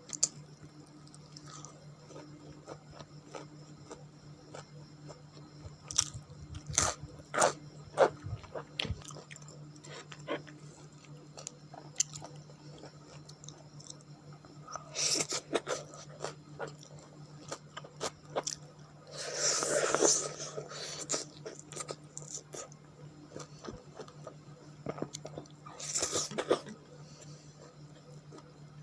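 Close-miked mukbang eating of white rice and spicy pork: chewing and biting with scattered wet mouth clicks. A few short, louder bursts come through, the loudest lasting about a second around twenty seconds in.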